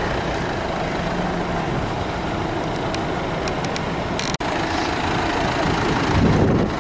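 A motor vehicle's engine running steadily, with a low rumble; the sound drops out abruptly for an instant about four seconds in.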